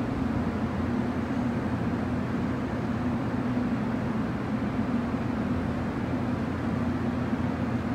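JR Kyushu 415 series electric train standing at the station platform, giving off a steady, even hum with no clanks or braking events.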